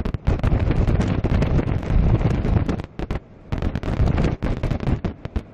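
Storm wind buffeting the microphone: a heavy, rough rumble that comes and goes in gusts, easing off briefly about three seconds in.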